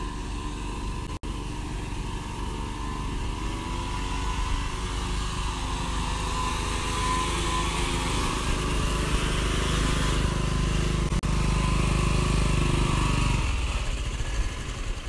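Small engine of a homemade mini tractor running under load as it drives over rough ground, its note rising and getting louder partway through, then dropping off near the end.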